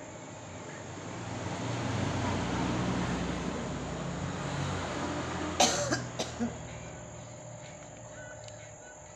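A grandmother coughing: one sharp cough a little past halfway, then two smaller coughs in quick succession. Before the coughs, a low rumble swells and fades.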